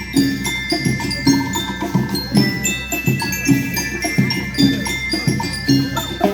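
School rhythm band playing: metallophones ring out a melody in quick bell-like notes over a steady drum beat of about two strikes a second.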